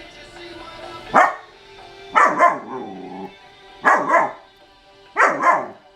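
German Shepherd dog giving loud alert barks, about five in all, spaced a second or so apart. Two come close together and trail off into a lower drawn-out sound. The dog is barking at something it senses outside.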